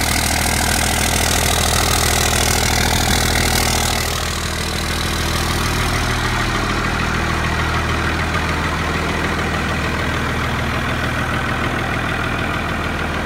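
1999 Dodge Ram's Cummins 5.9-litre inline-six turbo-diesel idling steadily, cold-started in sub-zero weather after warming on the block heater. Its sound turns a little quieter and less hissy about four seconds in.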